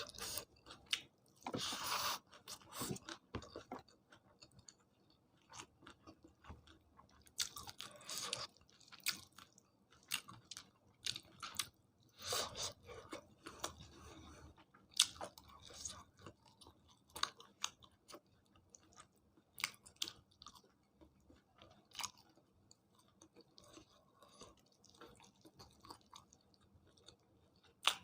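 A person chewing and eating food close to the microphone: irregular wet chewing and mouth clicks, broken by a few louder crunchy bites.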